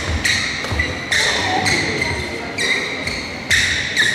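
Athletic shoes squeaking on a vinyl badminton court mat, about seven short high-pitched squeals in quick succession.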